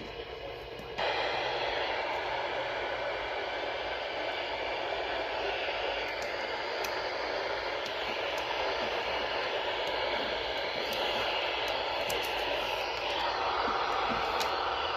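Weather radio receiver hissing with static, no broadcast coming through. The hiss jumps louder about a second in and stays steady, with a few faint crackles later on.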